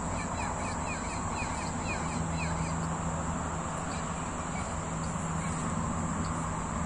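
Evening outdoor ambience: a steady high insect drone, with a bird giving a quick run of short, falling chirps over the first few seconds. A low steady hum runs underneath.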